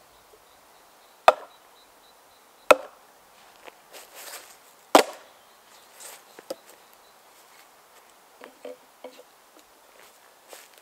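Oak maul striking a wooden wedge set in a split ash log: three sharp wooden knocks over about four seconds, driving the wedge in to cleave the log, then a few faint knocks.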